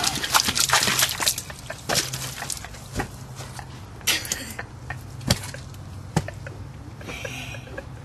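A child sipping and slurping water from a foam cup, with scattered small clicks and a few short splashy noises.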